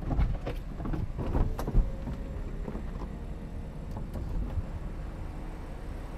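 BMW M4 Cabrio (F83) power folding hardtop opening: a series of clicks and clunks in the first two seconds as it unlatches, then a steady whir of the roof mechanism with a few more clicks about four seconds in.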